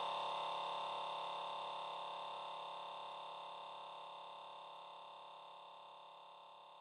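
A steady electronic tone held at the end of an electro-funk mix, fading out slowly.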